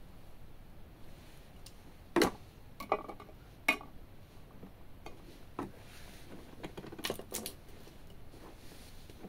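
Sharp clicks and taps of a metal knife knocking against the glass top of a Beatxp digital bathroom scale: the loudest about two seconds in, a few lighter ones after it, and a quick cluster of taps near the end.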